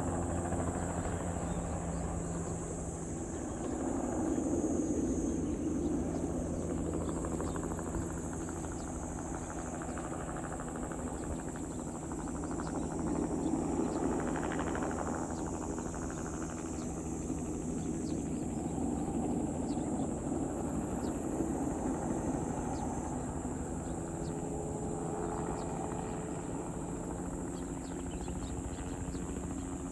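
Crop-spraying helicopter running, its rotor and engine sound swelling and fading several times as it passes back and forth.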